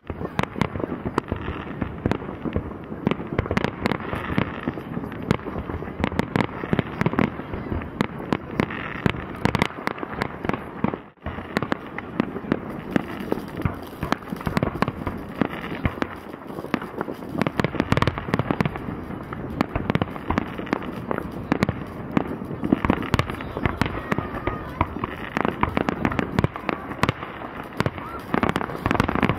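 Fireworks going off without a break: a dense mix of bangs, pops and crackles overlapping one another, with a brief drop-out about eleven seconds in.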